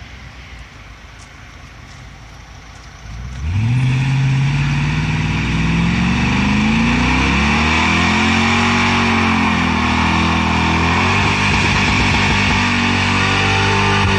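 Straight-piped 2013 Toyota Tundra idling low, then about three seconds in revved hard into a burnout. The engine holds at high revs with its pitch wavering up and down, over the steady squeal of spinning rear tyres.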